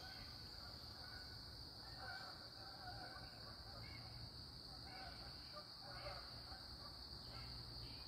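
Faint outdoor ambience: a steady high-pitched insect drone from crickets, with a few faint distant bird calls.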